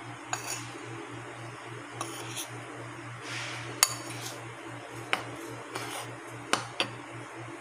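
Metal spoon stirring dry flour and cornstarch in a bowl: soft scraping with scattered clinks of the spoon against the bowl, over a steady low hum.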